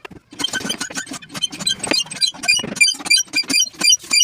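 Rapid series of metallic taps, each with a short high ring, about five a second: a hammer striking nails or tacks in woodwork.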